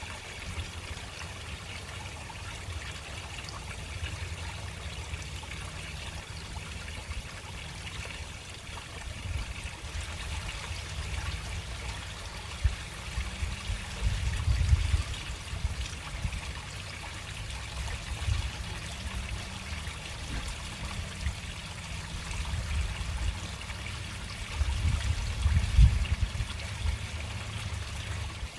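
Water running slowly into a storm drain, a steady noise of running water. A low rumble underneath grows louder twice, around the middle and near the end.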